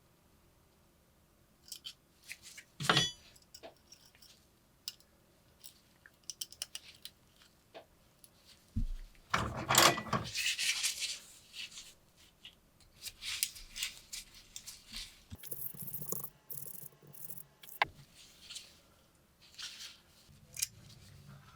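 Small metal clicks, rattles and scrapes from a brass lighter and its parts being handled. There is a sharp ringing click about three seconds in and a longer scraping rush around ten seconds in.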